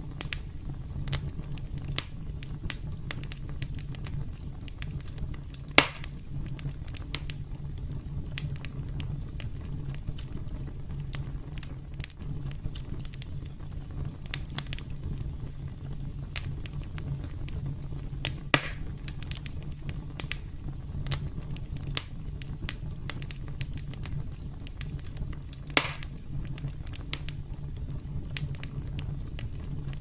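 Wood fire crackling, with a constant scatter of small snaps and three louder pops about 6, 18 and 26 seconds in, over a low steady rumble.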